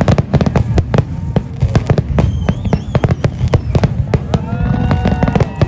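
Fireworks display going off: a rapid, dense string of bangs and crackles from bursting shells over a continuous low rumble.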